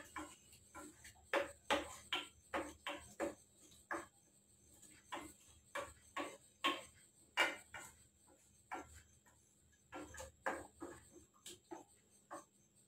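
A spoon stirring thick masala in a non-stick pan, scraping and knocking against the pan in short, irregular strokes with brief pauses between.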